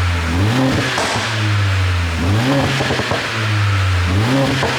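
Mercedes-AMG CLA45's turbocharged 2.0-litre four-cylinder idling and blipped three times, about two seconds apart, each rev followed by a quick run of exhaust pops and crackles as it drops back to idle. The pops come from an aftermarket pop-and-crackle tune.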